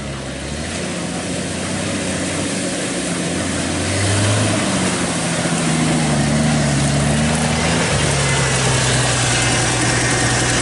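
Bullnose Ford Bronco's engine as the truck drives up, getting louder as it approaches, its pitch rising and falling with the throttle. About eight seconds in it settles to a steady idle.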